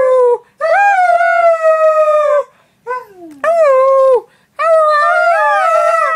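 Husky-type dog howling, a run of drawn-out, wavering howls with short breaths between them. One call slides sharply down in pitch about three seconds in.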